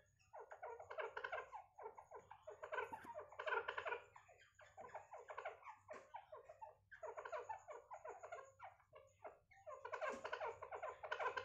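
Grey francolin giving rapid chattering calls in repeated bursts of about a second each, with short gaps between them.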